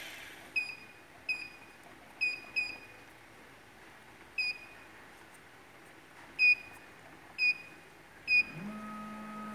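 Short, high keypad beeps from the cam-lock drilling machine's control panel as its buttons are pressed to step through the operating modes: eight beeps, irregularly spaced. Near the end a low steady hum starts and lasts about a second.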